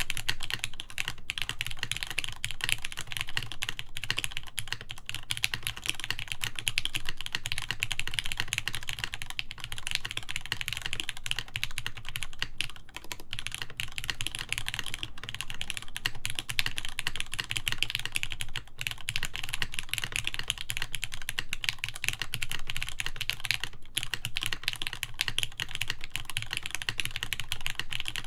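Fast, continuous typing on a Mode Sonnet mechanical keyboard with lubed Gateron X linear switches, GMK ASCII keycaps and a full aluminum plate. The keystrokes come in a dense stream with a few very brief pauses.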